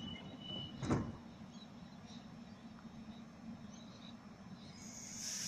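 Stationary Waratah electric train's steady low hum at the platform, with a single sharp thump about a second in and a hiss rising near the end.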